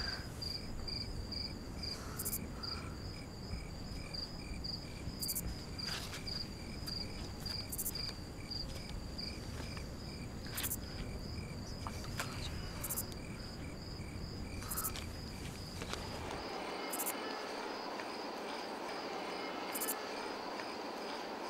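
Crickets chirping in a quick, even train of high chirps over a low night background hum, which drops away about three-quarters of the way through.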